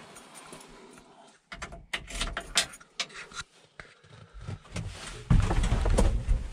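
Scattered clicks and knocks from the cab and door of a 1973 Ford F-250 pickup as someone gets in, then a louder low rumble from about five seconds in.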